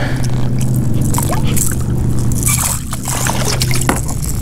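Water splashing and sloshing as a small hooked bass is reeled in to a kayak, with a few sharp clicks over a steady low hum.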